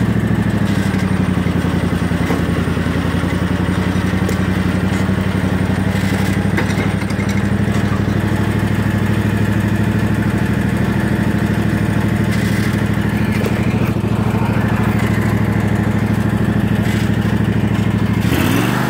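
Zero-turn riding mower's engine running steadily under the rider, heard from the seat as the mower is driven. Near the end the engine note changes, with a short rising glide.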